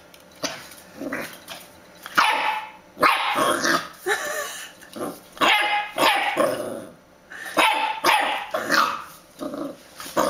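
A young dachshund puppy barking over and over, a dozen or so short barks.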